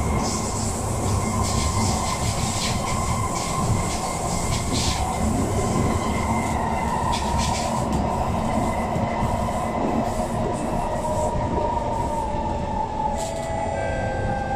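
Inside a Kawasaki C151 MRT car: steady wheel-on-rail rumble with clicks over the track and the whine of the Mitsubishi GTO chopper traction equipment. The whine holds a steady pitch, then sinks over the last few seconds as the train brakes electrically.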